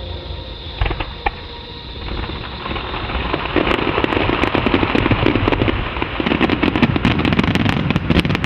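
Fireworks: two sharp bangs about a second in, then from about halfway a dense, rapid crackle of many sharp pops over a low rumble as gold crackling shells burst.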